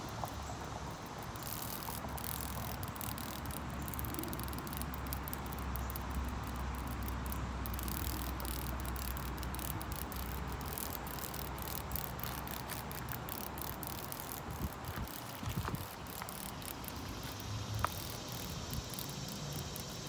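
Insects chirping outdoors: fast, uneven high-pitched ticking over a steady hiss, with a low rumble that swells in the middle.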